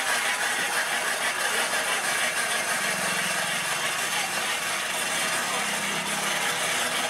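Steady street-market background noise: an engine running with a low hum, and distant voices.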